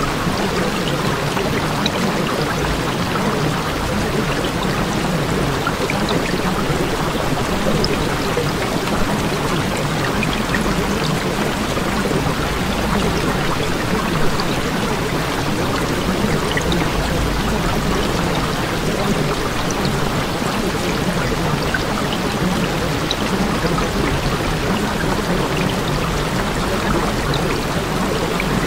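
Steady rushing water sound, even and unbroken, with scattered tiny drip-like ticks.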